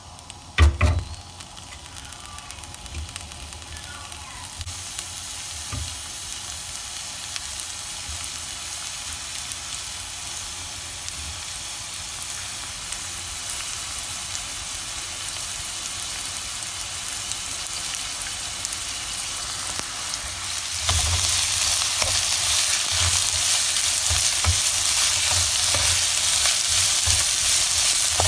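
Strips of nopales (prickly pear pads) sizzling in hot olive oil in a non-stick frying pan. The sizzle builds steadily and jumps louder about three quarters of the way through. There is a sharp thump just under a second in, and a few low knocks near the end as the strips are stirred.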